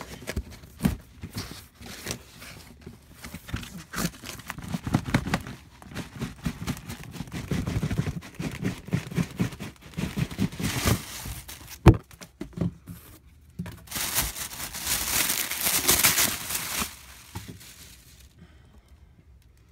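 Cardboard shipping box and its packing being unpacked by hand: scrapes, rustles and knocks of cardboard and plastic wrapping, with a sharp knock about two-thirds of the way through and a few seconds of tearing and crinkling after it.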